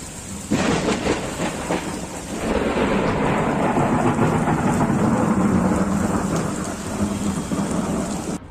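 Thunder from a nearby lightning strike: a sharp crack about half a second in, then a long rolling rumble that swells and slowly fades, over steady rain. It cuts off suddenly near the end.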